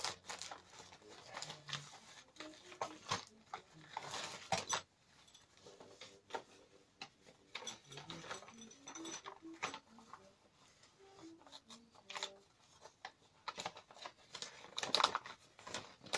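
Paper wrapping rustling and crinkling as it is unfolded and handled, in irregular bursts, louder about four seconds in and again near the end.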